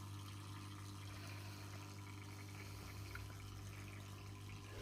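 Small submersible fountain pump running with a steady low hum, with water trickling faintly as it is pumped up through the fountain.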